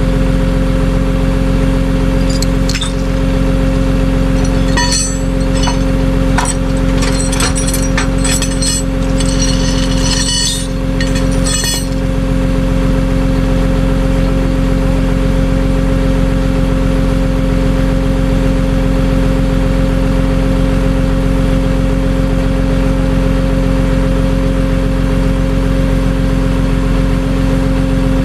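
Vehicle engine running steadily with a constant drone. Between about 3 and 12 seconds in there is a scatter of light metallic clinks and rattles.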